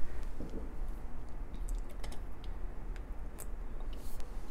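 Light, scattered clicks and taps of hard plastic toy figures being handled and set down on a tabletop, with a brief rustle near the end.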